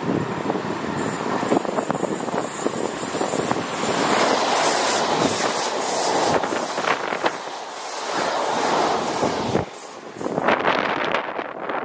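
London Northwestern Class 350 Desiro electric multiple unit passing the platform at speed: a rushing of wheels on rail and air that builds over a few seconds and cuts off sharply as the last coach goes by, about ten seconds in.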